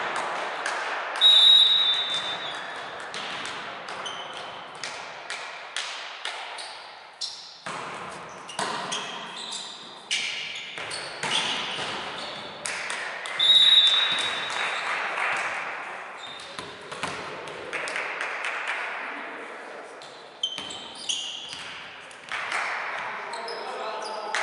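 Indoor volleyball rally echoing in a large sports hall: repeated sharp slaps of the ball on hands and arms, shoe squeaks and players' shouts. A short shrill tone sounds about a second in and again about 13 seconds in.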